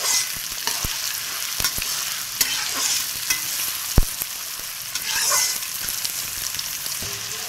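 Freshly added chopped onions, green chillies and whole spices sizzling in hot oil in a metal kadai, stirred with a metal spoon that scrapes and clinks against the pan. The sharpest clink comes about four seconds in.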